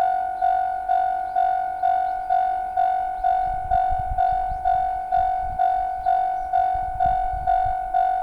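Japanese railway level-crossing warning bell ringing in an even, repeating ding, about two strokes a second, each stroke fading before the next. A low rumble comes and goes in the middle.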